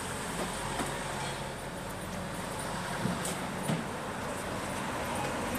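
Street traffic noise with a vehicle engine running steadily nearby, plus a couple of faint clicks about three seconds in.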